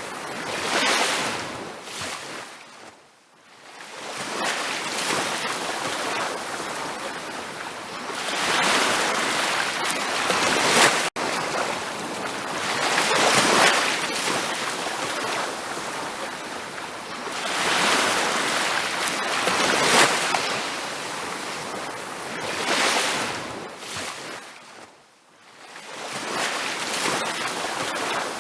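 Ocean surf on a beach: waves breaking and washing in, the sound swelling and fading in slow surges and dying almost away twice, a few seconds in and again near the end. A momentary gap cuts the sound about a third of the way through.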